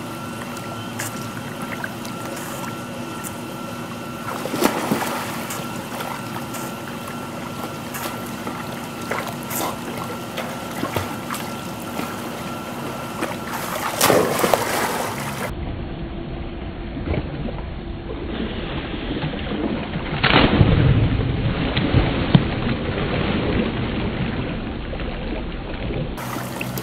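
German Shepherd dogs splashing as they wade and swim through pool water, with louder splashes about 5 seconds in, about 14 seconds in, and again about 20 seconds in, over a steady low hum.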